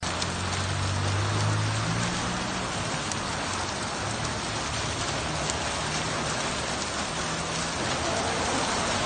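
Rain falling on wet streets and ground, a steady even hiss, with a low hum underneath for the first two seconds or so.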